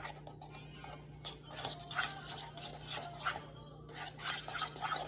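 Spoon scraping and stirring a thick peanut butter and cocoa dough in a ceramic bowl, in short, uneven strokes.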